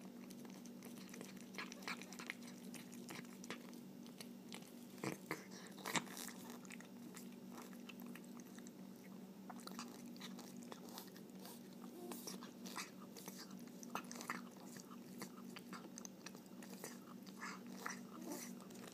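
A long-haired cat eating wet food from a plate: quick, irregular chewing clicks one after another, over a steady low hum.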